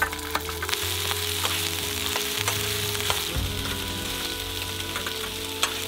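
Sausage pieces and meatballs sizzling in hot oil as they are tipped into a frying pan on a portable gas stove, with a steady frying hiss and scattered clicks of a utensil against the pan as they are stirred.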